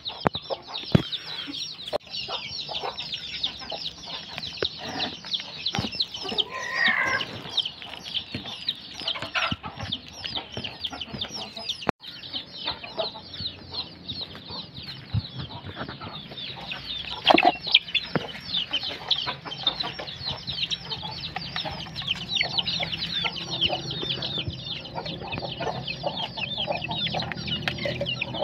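A flock of chicks and young chickens peeping without pause in a dense stream of high, falling cheeps, with the odd lower cluck. Scattered sharp taps come from beaks pecking at mash on a plastic plate.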